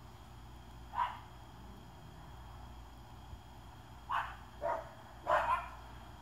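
A dog barking a few short barks: one about a second in, then a quick run of three or four near the end.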